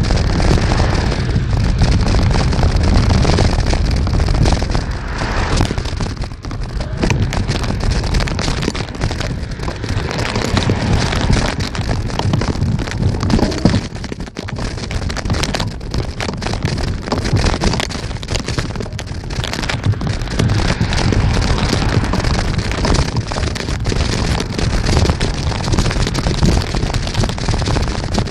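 Wind buffeting the microphone of a moving bicycle: a continuous rush, heaviest in the low end, that rises and falls in strength with a brief dip about halfway through.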